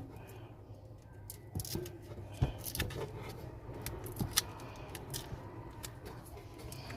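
Scattered light clicks and taps of hand tools and fingers working a phone's plastic back cover loose, a few sharper clicks among them, over a low steady hum.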